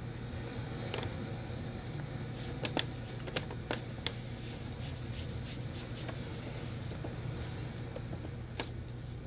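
Soft clicks and taps of a watercolour brush against a metal paint tin and the paper as paint is picked up and dabbed on, clustered a few seconds in and once near the end, over a steady low hum.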